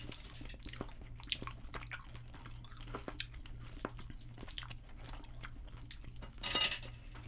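Close-miked chewing of mouthfuls of Skittles candy, small irregular clicks and smacks, over a low steady hum. A brief louder noise about six and a half seconds in.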